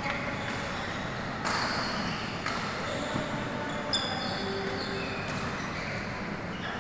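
Background din of a busy badminton hall: short high squeaks and sharp hits from play on the surrounding courts over a steady hall noise.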